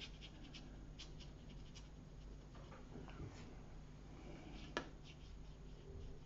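Faint scratching of a paintbrush working watercolour onto paper, with light ticks in the first second and one sharp tap just before five seconds in, over a low steady hum.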